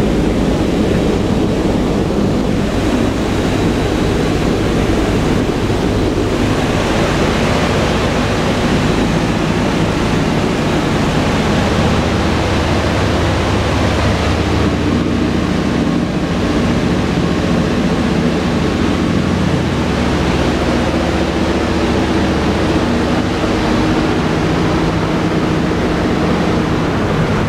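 Steady drone of a B-17 Flying Fortress's four Wright R-1820 Cyclone radial engines in flight, heard inside the bare metal fuselage, with a rush of air noise over it.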